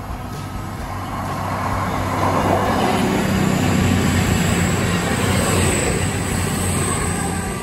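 CrossCountry Voyager diesel multiple unit passing at speed. A rushing rumble of wheels and underfloor diesel engines builds to a peak about halfway through, then fades as the carriages go by.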